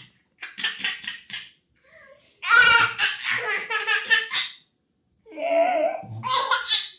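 Laughter in three bursts of quick, pulsed giggles, each lasting one to two seconds, with short pauses between them.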